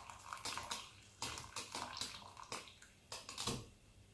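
Cooking liquid poured slowly from a tilted steel pot into another pot of stock, splashing and trickling unevenly, then stopping near the end.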